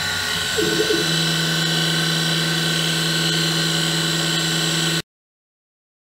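CNC-converted Grizzly G0704 milling machine running, its spindle motor and stepper-driven axes feeding slowly into an ABS plastic panel. About a second in, a short wavering tone settles into a steady hum as the feed runs at constant speed. The sound cuts off abruptly near the end.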